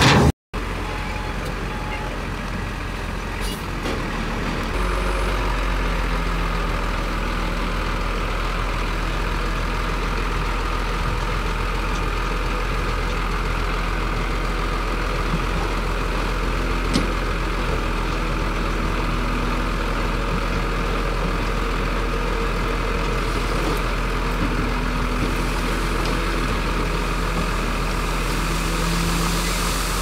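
Heavy construction-machine diesel engine running steadily at a working pace, with a brief gap in the sound just after the start.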